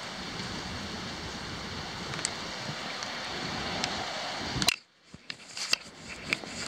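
Steady hiss of heavy thunderstorm rain falling. About three-quarters of the way in it cuts off suddenly with a click, leaving scattered taps and drips.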